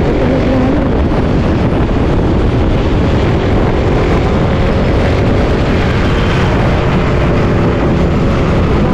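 Suzuki Raider 150 Fi motorcycle on the move, wind rushing over the microphone as a steady heavy rumble, with the engine's hum faintly underneath.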